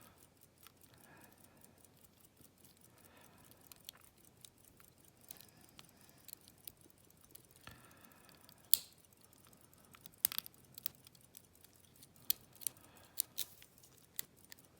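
Faint, scattered small metallic clicks and ticks from handling a Yale lock cylinder and its key or picking tools, a few sharper clicks in the second half.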